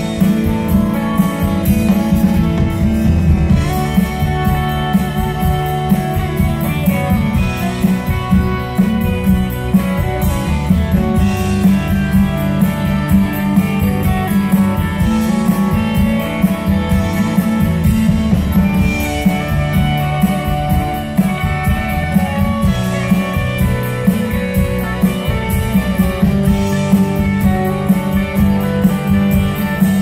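Live rock band playing: guitars over drum kit and keyboards, with a cymbal crash about every four seconds, heard from the audience in a concert hall.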